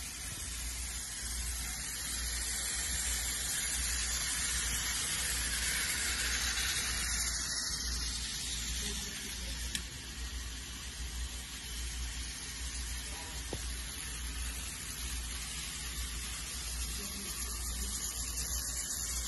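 Battery-powered Thomas & Friends toy engines running along plastic track: a steady, hissy whirr from their small motors and gears.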